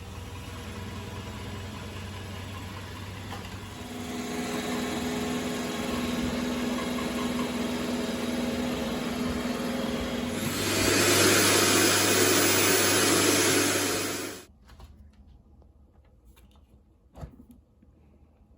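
Roomba j7+ robot vacuum running with a steady motor hum. It gets louder about four seconds in, then much louder and hissier for about four seconds before cutting off suddenly. A single short click follows in the quiet.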